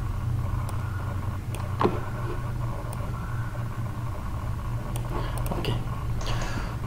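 Steady low background hum, with one sharp click about two seconds in and a few faint ticks near the end.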